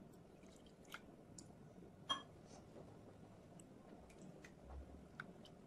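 Faint scattered clicks and light taps, with one sharper tap about two seconds in: a wooden spatula knocking against a clay pot while raw prawns are mixed with turmeric and water.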